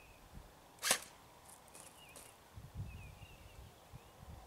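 One short, sharp snap about a second in from a CYMA AK47 airsoft electric rifle firing a single shot.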